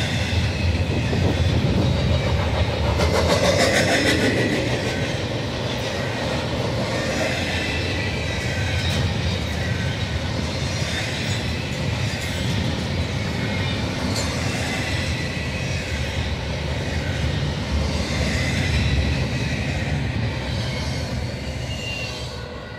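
Double-stack container cars of a long freight train rolling past close by: a steady rumble of steel wheels on rail with scattered clicks and thin squealing tones. It fades near the end as the last cars go by.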